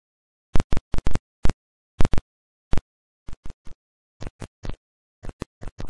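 A run of about twenty sharp, separate impact hits with dead silence between them, an edited intro sound effect. The first eight or so are loud; the rest are softer and come closer together near the end.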